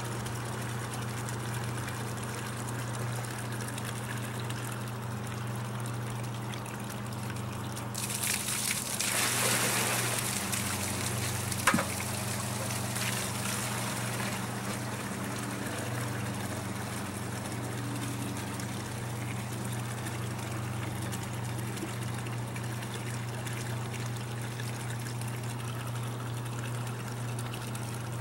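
Water pumped out of a boat pours from a hose into a plastic bucket over the steady hum of the running pump. About eight seconds in the splashing gets louder and hissier for a few seconds, and there is one sharp knock near twelve seconds.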